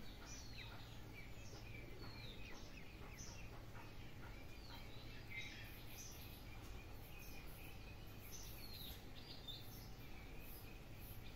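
Faint outdoor ambience of scattered short, high, falling bird chirps over a steady low hum, with a faint high rhythmic pulsing coming in about halfway through.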